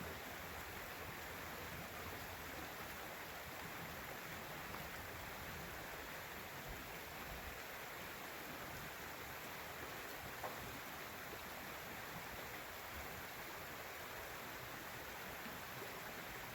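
Creek water flowing steadily: an even, continuous rush of moving water.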